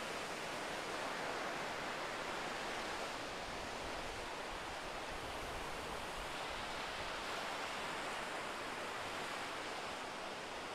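Gentle sea surf: small waves breaking and washing up a sandy beach as a steady rushing wash.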